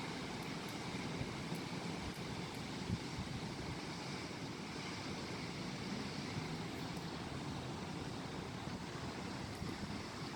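Strong wind blowing steadily, with gusts buffeting the microphone at the low end.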